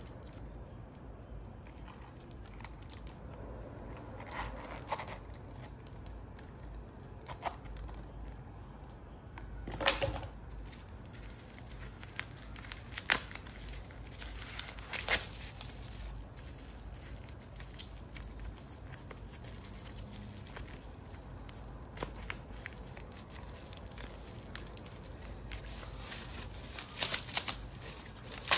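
Thin white wrapping paper being crumpled and rustled by hand, heard as scattered short crinkles and sharp clicks with quiet handling between them, over a faint steady low hum.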